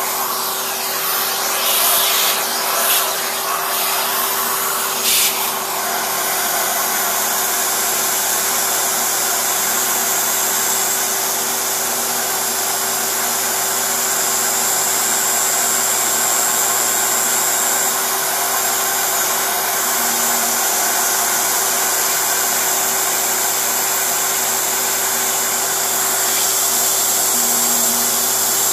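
Small CNC milling spindle running at high speed with a steady whine as its end mill cuts a pocket in a clear plastic block, with a few brief louder cutting sweeps in the first several seconds.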